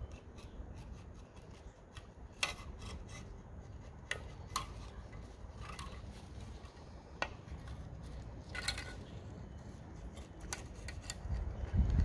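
A flat metal scraper and gloved hands working in an opened diesel intake manifold caked with EGR soot and oil. There are a handful of sharp metal clicks and taps at irregular moments over quiet scraping and rubbing.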